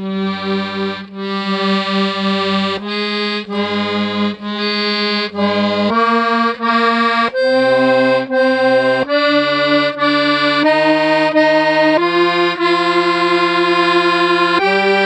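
Hohner Ouverture V S garmon (button accordion) played in chords with changing bass notes, the chord shifting every second or so. Its reeds are out of tune throughout, giving a harsh, grating sound.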